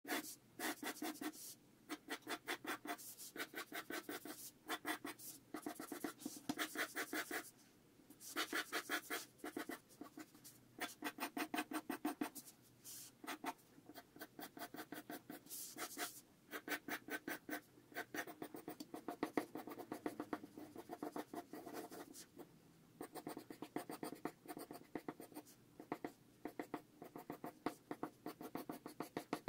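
Pencil sketching on paper: quick, scratchy back-and-forth strokes in bursts of a second or two, with short pauses between them.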